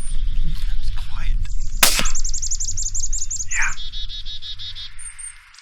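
A single suppressed rifle shot, a sharp crack about two seconds in, over a steady low rumble that cuts off abruptly near the end. Birds chirp in quick repeated series after the shot.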